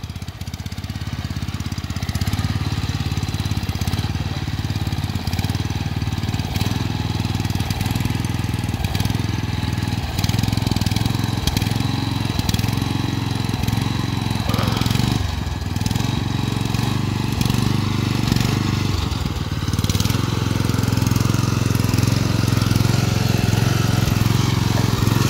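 Small Mitsubishi petrol engine running steadily under load, driving the water bike's propeller through a gearbox and chain.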